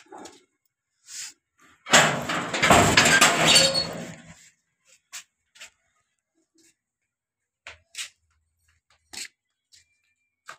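A door being opened with a loud scraping rattle lasting about two and a half seconds, followed by a handful of light knocks and clicks.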